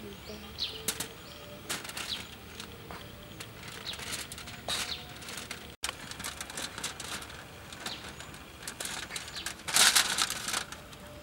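Aluminium foil crackling and rustling under hands that break and press a chunk of honeycomb on it, with a louder burst of crinkling about ten seconds in. A bird chirps briefly near the start.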